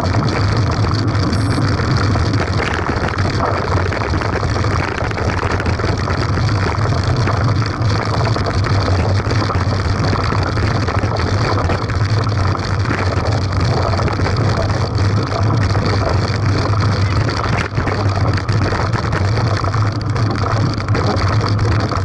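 Steady rushing and rumbling noise from a bike-mounted camera riding over a rough concrete road: wind on the microphone and the road and tyres, with a constant low hum underneath.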